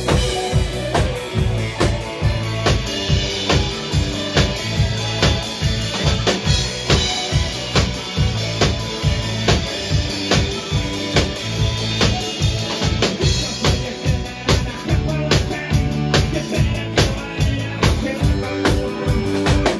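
Live band music: an accordion playing a tune over a drum kit keeping a steady, driving beat.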